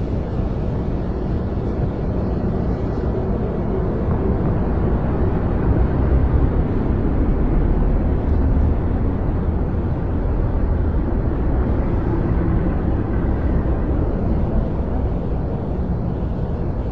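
A steady, low rumbling city background noise, like distant traffic, swelling slightly in the middle.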